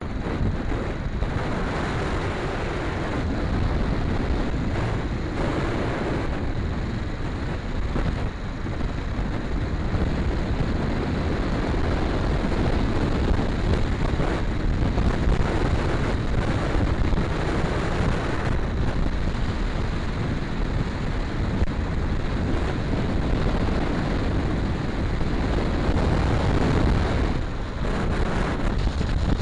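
Yamaha XT250 motorcycle under way, its engine and road noise mostly covered by wind buffeting the microphone, steady throughout.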